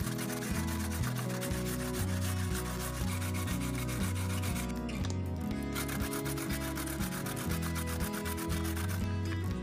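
Fast, even rubbing or rasping strokes, like sanding, heard over background music with a steady bass; the rasping breaks off for about a second midway, then resumes and stops shortly before the end.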